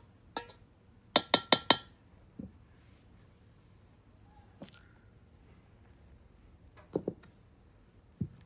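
Four quick ringing clinks, like a utensil tapped against a metal pot or dish, about a second in, followed by a few softer knocks. A steady high insect buzz runs underneath throughout.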